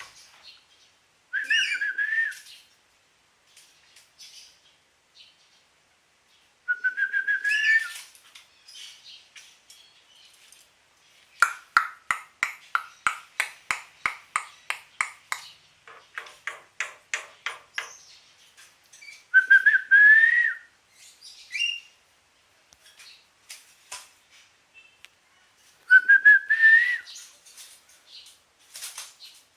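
Asian pied starling (jalak suren) singing. Four short rising whistled phrases come a few seconds apart, with a fast run of clicking, chattering notes in the middle.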